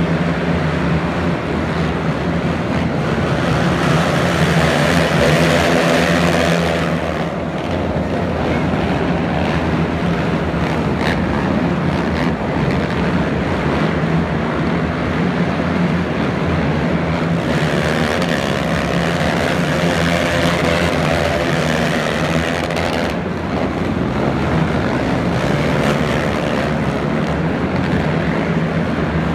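Engines of several racing quad ATVs running hard as the pack laps a dirt track, a continuous loud drone that swells and eases as the riders come around.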